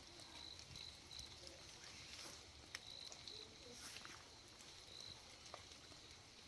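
Faint outdoor ambience on a rainy morning: short high chirps repeating every half second to a second, with scattered soft clicks of water dripping.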